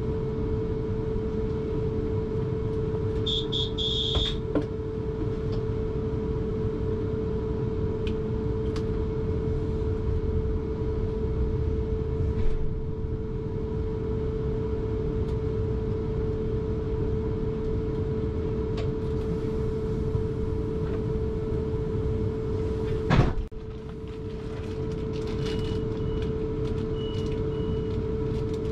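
Interior of an electric suburban train: a steady electrical hum over a low rumble, a short run of high warning beeps about three seconds in, and a loud bang of the sliding doors shutting a little before the end, followed by a few more high beeps.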